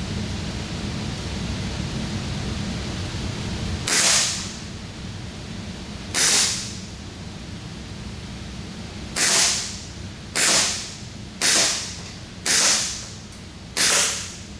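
Sig Sauer SP2022 replica CO2 airsoft pistol (non-blowback) firing seven shots, at uneven intervals of one to three seconds, each a sharp pop that trails off over about half a second.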